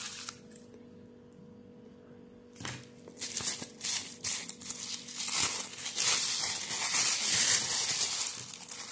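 Thin clear plastic packaging crinkling as hands unwrap a card from its sleeve and bag. It is quiet for the first couple of seconds, then crinkles continuously from about three seconds in.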